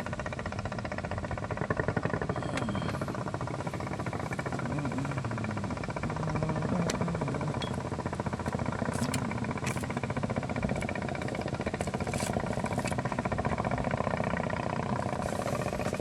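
A small engine running steadily with a fast, even pulse, with a few sharp ticks over it partway through.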